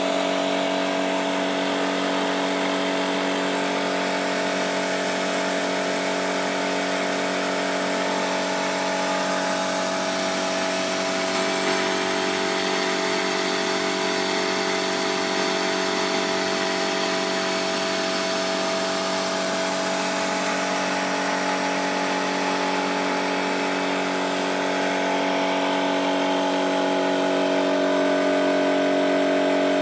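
3D-printed turbofan model engine spinning on compressed air: a steady whir and hiss with several steady tones from the fan and shafts, getting a little louder near the end.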